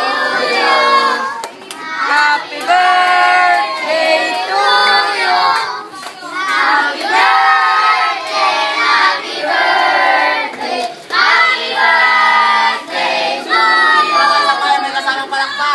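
A group of children and adults singing together, clapping along.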